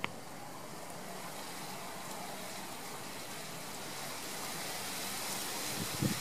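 Steady outdoor hiss of wind through grass and foliage, swelling slightly toward the end, with a single small click right at the start.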